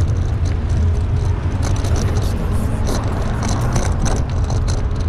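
Wind rumbling steadily on the microphone of a camera carried on a moving bicycle, with road traffic passing and scattered light ticks.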